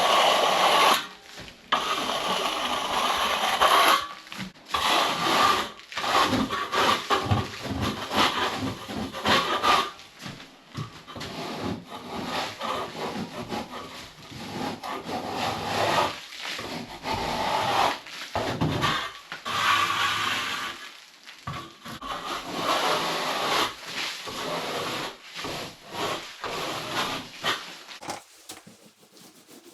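Repeated irregular scraping and rubbing strokes of hand tools working on a plastered wall, with short pauses between bursts, fading out near the end.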